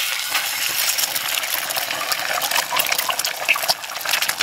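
An egg frying in hot olive oil: a loud sizzle starts suddenly as it goes in, then carries on as a steady hiss with sharp crackles and spits.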